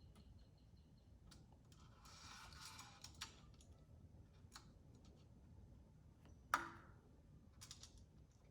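Faint, scattered small clicks of a screw and small hardware being worked by hand, with a short scrape about two seconds in and one sharper click about two-thirds of the way through.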